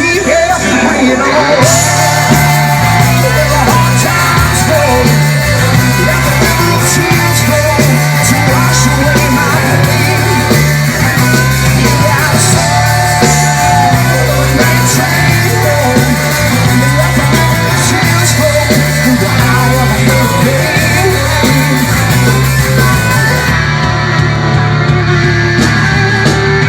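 Rock band playing live, with a lead vocal over electric guitar, bass and drums; the cymbals drop out near the end.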